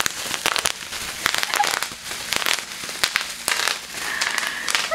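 Small-bubble bubble wrap squeezed and popped by hand: a fast, irregular crackle of many small pops over crinkling plastic.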